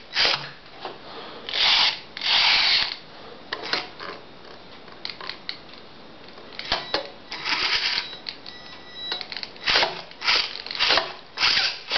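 Hobby RC servos in a small home-built combat robot whirring in short bursts as its drive wheels turn it and its servo-driven axe arm swings. The bursts come repeatedly, each a fraction of a second to about a second long, with a brief steady whine a little past the middle.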